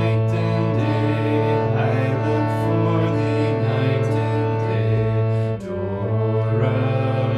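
Slow instrumental music: held notes over a steady low drone, with a short dip about two-thirds of the way through.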